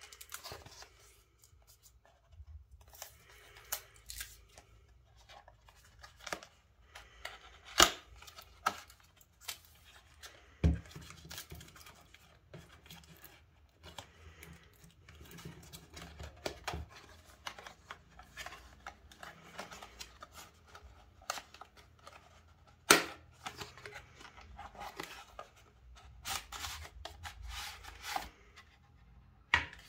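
Hands opening a small cardboard box: the end flap pried open, cardboard rubbing and scraping, and the inner tray sliding out, with scattered sharp clicks and taps. A dull thump comes about eleven seconds in, and the sharpest clicks come about eight and twenty-three seconds in.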